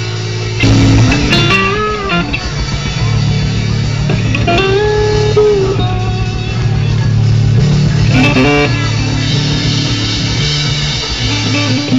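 Live blues-rock duo playing an instrumental passage: distorted electric guitar with bent, sliding notes over a driving drum kit. The band comes in harder a little under a second in.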